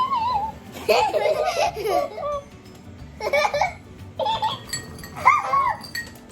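High-pitched giggling in about five short bursts, the pitch wavering up and down.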